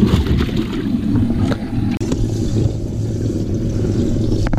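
Bass boat livewell pump running, a steady low hum with water churning in the livewell.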